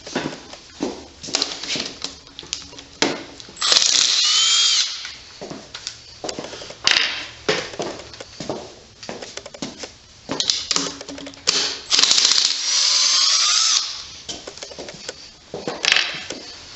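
A power drill runs in two bursts of about a second and a half each, a few seconds in and again about twelve seconds in, its whine bending in pitch as it takes load. Between them, short metallic clicks and knocks of tools and parts being handled.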